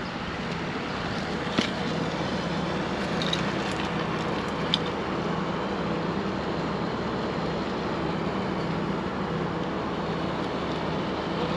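A diesel tractor engine idling steadily, with a couple of light clicks, about one and a half and four and a half seconds in.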